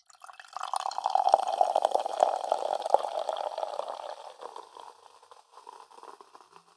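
A soda pouring and fizzing, with a crackly bubbling sound. It is loudest in the first few seconds and then fades away.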